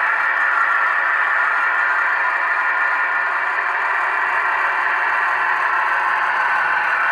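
ESU LokSound V4 sound decoder in a model Class 22 diesel locomotive playing its diesel engine sound through the model's small loudspeaker: a steady engine sound with no deep bass.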